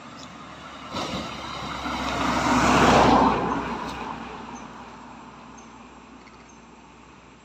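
A road vehicle driving past: a rush of noise that swells from about a second in, peaks about three seconds in, and fades away over the next few seconds.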